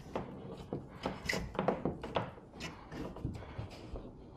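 Scattered small knocks, taps and scraping as electrical wires are pushed through a hole in drywall and worked into a breaker panel opening.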